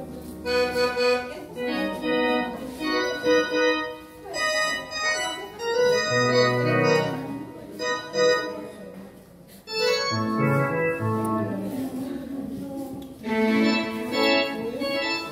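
Electronic keyboard with an organ sound playing a melody of held notes and chords, in phrases broken by short pauses: the instrumental opening of a worship song.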